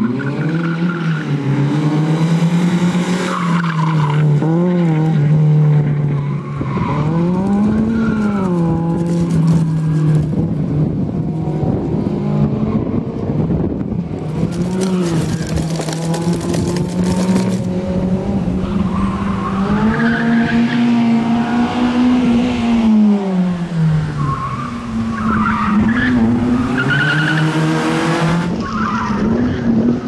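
Suzuki Swift rally car's engine revving hard, its pitch climbing and dropping again and again through gear changes and corners, with tyres squealing at times.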